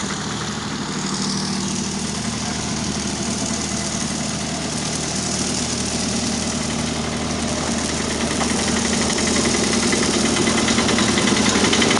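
Diesel generator set running steadily at a constant engine speed, growing louder toward the end.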